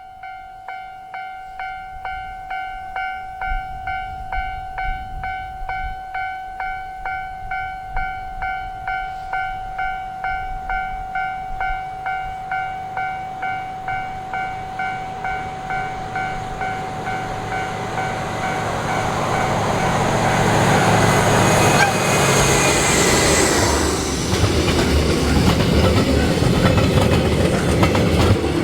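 Japanese level-crossing warning bell ringing steadily at about two dings a second, growing louder. From about eighteen seconds in, an approaching train's running noise builds up and drowns the bell, with loud rumbling wheel and rail noise as it passes.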